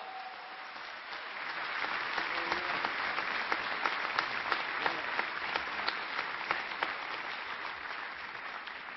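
Large seated audience applauding in a hall, the clapping swelling about two seconds in and then holding steady.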